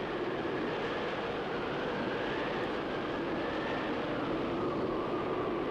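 Blizzard wind howling steadily, with a high whistling tone that wavers and slowly sinks in pitch over a constant rush of blowing snow.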